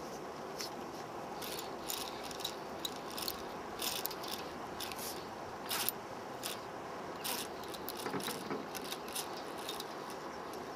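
Fishing reel ratcheting in short, irregular bursts of clicks while a hooked sturgeon is played on the line, over a steady rushing noise.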